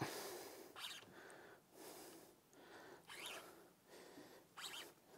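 Faint, heavy breathing in short puffs about once a second: an angler straining while playing a heavy fish on a bent rod.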